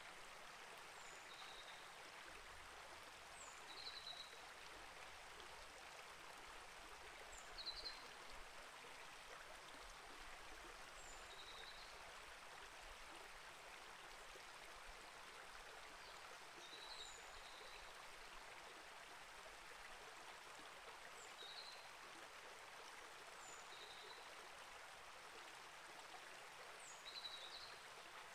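Small rainforest creek flowing steadily, a quiet, even rush of water. A bird gives a short high chirp every few seconds over it.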